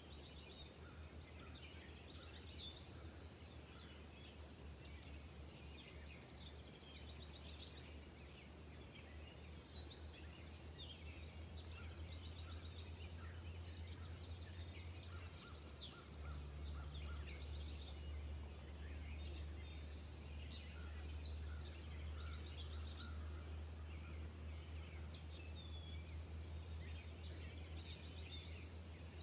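Faint outdoor ambience: many small birds chirping in short, scattered calls over a steady low rumble that grows a little stronger about halfway through.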